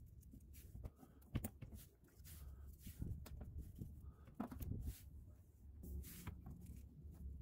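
Plastic push-pin retainer clips being pressed into the underside of a car's front bumper: a few faint clicks and handling noises over a low rumble.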